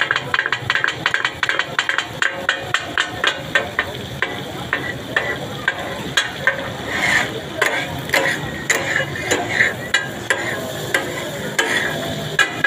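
Two flat metal spatulas rapidly chopping and clanging against a large iron griddle (tawa) while katakut is made, with the food sizzling on the hot plate. The clacking goes in a fast, uneven rhythm of several strikes a second.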